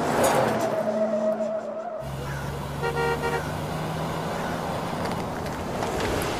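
A car driving: for the first two seconds a steady whine over a rushing noise, then a sudden change to the engine running low and steady. About three seconds in, a car horn gives a short toot.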